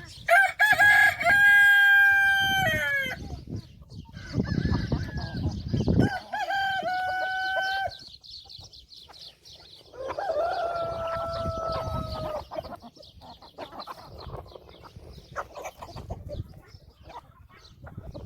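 Roosters crowing three times, each crow long and drawn out, with hens clucking in between.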